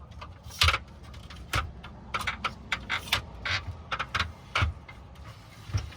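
Aluminium folding picnic table being handled and set down: a string of irregular metal clicks, clanks and knocks, with a few louder knocks spread through.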